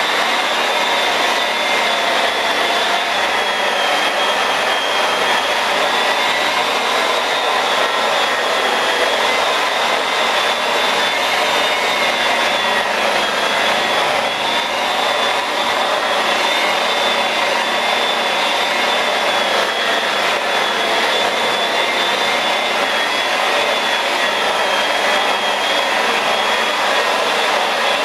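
Electric rotary polisher with a foam pad running steadily against car paint, a high motor whine that wavers slightly in pitch as the pad is worked over the panel. This is the cut-and-polish stage of a scratch repair, bringing the touched-up area to a fine finish.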